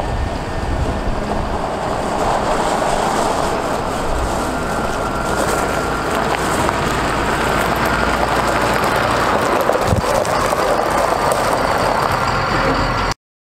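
Cummins ISB 5.9L diesel engine of a 2007 Ford F650 dump truck running as the truck drives slowly past, getting a little louder as it comes closer. The sound cuts off suddenly near the end.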